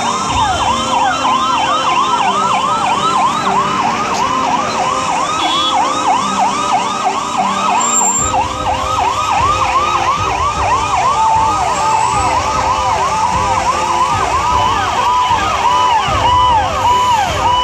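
Several emergency-vehicle sirens, among them an ambulance's, sounding together in quick rising-and-falling yelps of about three a second that overlap one another. Some steadier held tones mix in later, and vehicle engine noise comes up about eight seconds in.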